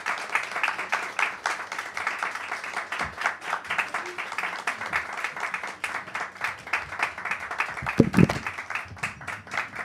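Audience applauding, a dense steady clatter of many hands clapping. A low thump sounds about eight seconds in.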